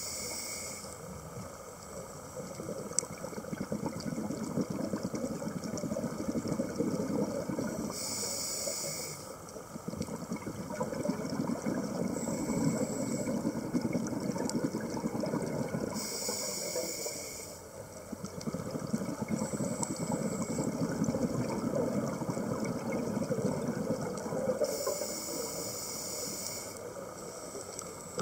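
Scuba regulator breathing heard underwater: a short hiss about every eight seconds, with a low rumble of exhaled bubbles in between.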